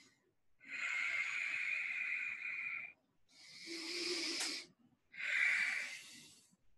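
A man's deliberate deep breathing: three long, hissing breaths in a row, each one and a half to two and a half seconds, with a short pause between them, as he goes into a channeling trance.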